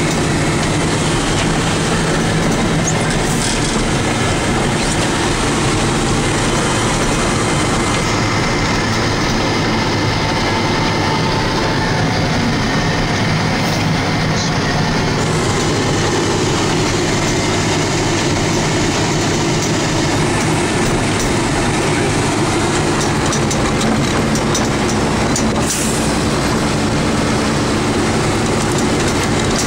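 Inside the cab of a 1991 Ford L9000 plow truck under way: the diesel engine running under load with a steady, heavy rumble and rattle as the plow and wing push snow.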